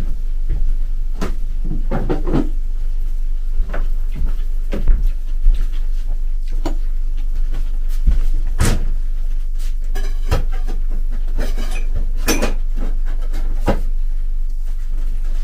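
Intermittent knocks and clatter of household things being handled and moved about, with the loudest clusters about nine and twelve seconds in, over a steady low hum.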